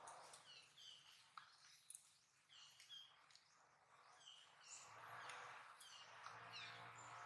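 Faint bird chirping: many short high notes that sweep down in pitch, repeated throughout, with a low hum coming in about five seconds in.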